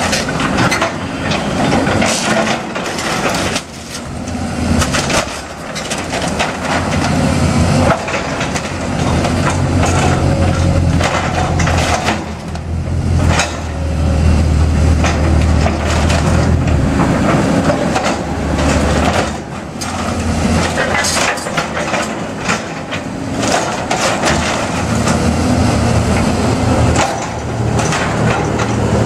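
Hyundai tracked excavator demolishing a wood-framed building: timber cracking, splintering and crashing in repeated sharp impacts over the excavator's diesel engine working under load, the engine loudest about halfway through.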